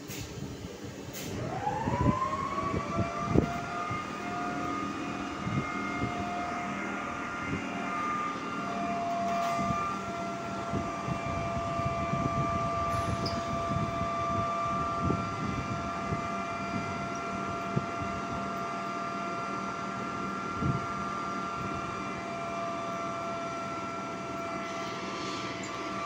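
The 'ronfleur' auxiliary machine of an SNCF BB 22200 electric locomotive spinning up: a whine rises in pitch about a second in, then settles into a steady high hum. A few knocks sound as it comes up to speed.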